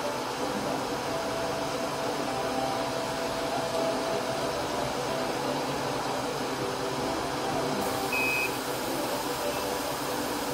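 Steady whir of a laser cutter's fans running, with a faint wavering hum. A short high beep sounds about eight seconds in.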